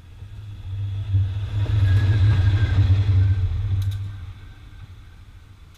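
Diesel locomotive engine drone, a deep steady rumble that swells over about a second, stays loud for about three seconds, then fades away from about four seconds in.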